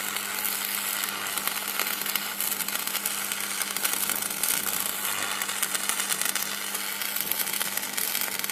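Electric crackling and sizzling sound effect: a dense, continuous crackle over a steady low hum.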